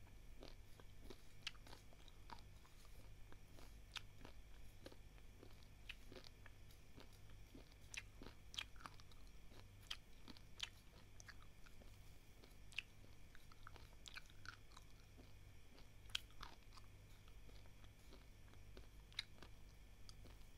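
Faint crunching of a person chewing dry, uncooked basmati rice grains: irregular sharp cracks, a few louder than the rest.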